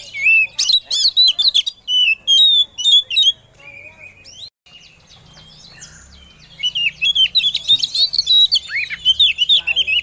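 Oriental magpie-robin (kacer) singing in rapid, varied phrases of whistles and chattering notes, in two loud bursts with a short lull near the middle. It is a female's call to a male, used to prompt a captive male to answer.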